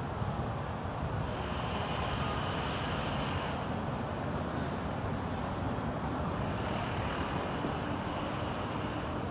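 Steady outdoor background rumble: wind on the microphone mixed with distant road traffic.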